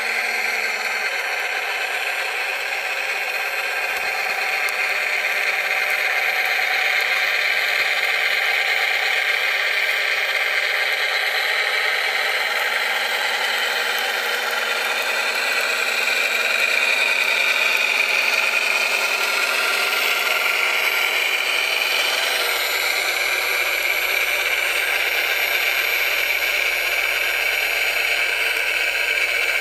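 Radio-controlled scale model 966 wheel loader running: a steady mechanical whir from its motors and drive. The pitch wavers up and down for a few seconds a little past the middle as it works.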